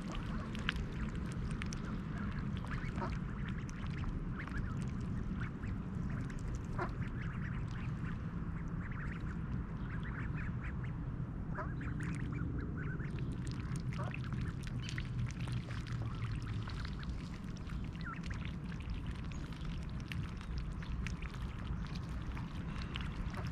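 Mallard hen and her nearly grown ducklings quacking as they feed, with many short scattered clicks and calls over a steady low rumble.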